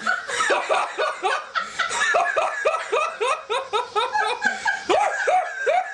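A man laughing on purpose in a quick, even string of short "ha" bursts, about three or four a second, as he tries to laugh without smiling.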